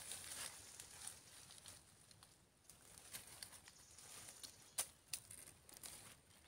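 Near silence with faint rustling and a few small sharp clicks, the loudest two close together a little under five seconds in.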